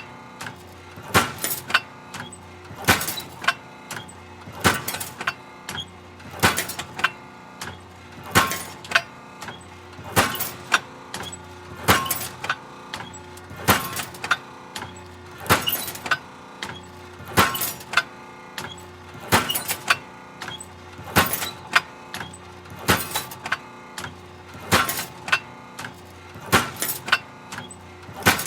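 Hydraulic metal shear running, its blade striking with a sharp metallic pound about every second and three quarters, sometimes as a quick double knock, over a steady machine hum.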